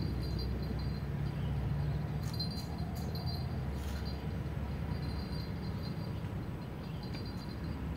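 Steady outdoor background noise: a low rumble with faint insect chirring that pulses on and off high up, and a few faint clicks about two to four seconds in.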